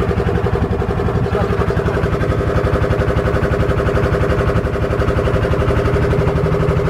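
Engine of a small wooden river boat running steadily under way, a loud, even, fast putter with no change in speed.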